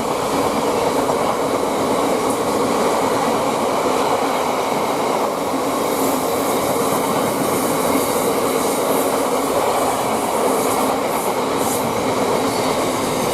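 Freightliner freight train hauled by a Class 66 diesel locomotive passing through the station: a steady loud rumble and clatter of wagon wheels on the rails, with a faint steady hum.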